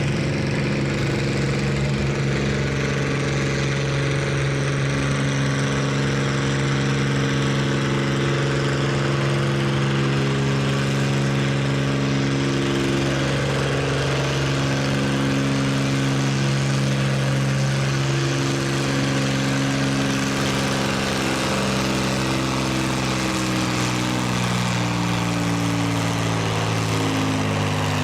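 Farm tractor engine running at a steady speed, with an even, unchanging note that shifts slightly in pitch in the later part.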